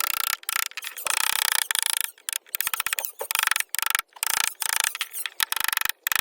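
Hand tool scraping and cutting wood in short repeated strokes, each stroke a quick rasping run of fine clicks, with brief pauses between them.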